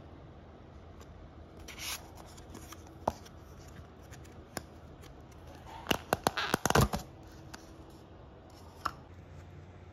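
Thin plastic lid being pried off a clear plastic dessert cup by hand. There are a few single plastic clicks, then a quick run of crackles and snaps about six to seven seconds in as the lid comes free, and one more click near the end.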